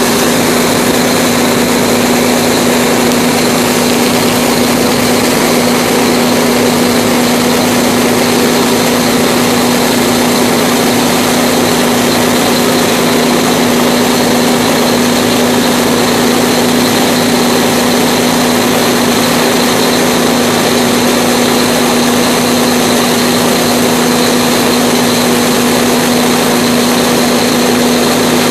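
Fire engine's pump running steadily at a constant pitch, a loud unchanging drone under a broad hiss, keeping the hose line charged.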